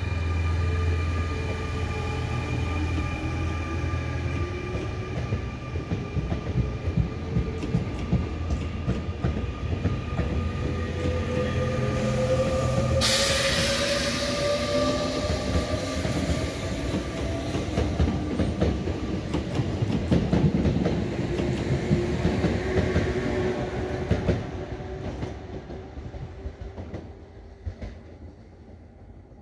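Double-deck RER C electric multiple unit pulling away and accelerating: the traction motors whine, rising steadily in pitch, over wheel clatter on the rails. A loud hiss starts suddenly about halfway through and stops a few seconds before the end, and then the train's sound fades as it recedes.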